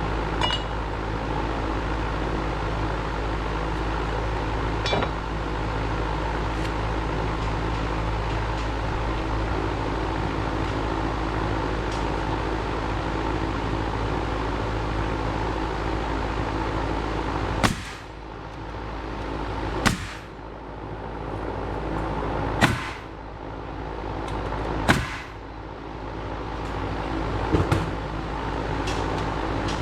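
An engine runs steadily, then in the last third come five single sharp knocks about two to three seconds apart, typical of framing work on the wooden joists.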